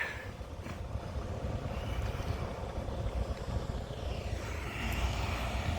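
Steady low rumble of an approaching CSX freight train's diesel locomotives, with a faint steady hum over it.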